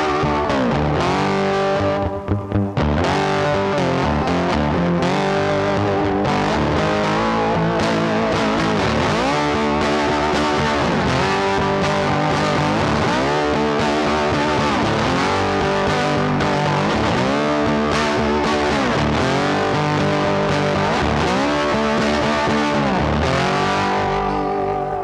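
Background music led by distorted electric guitar, with a short break about two seconds in.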